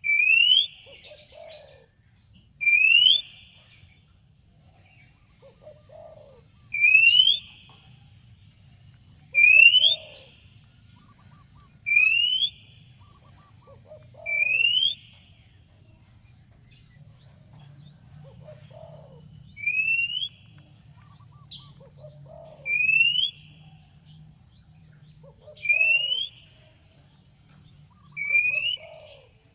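Oriental magpie-robin (kacer) giving a repeated call: a short, loud whistle that sweeps upward, about ten times at intervals of two to three seconds, with a pause of several seconds midway.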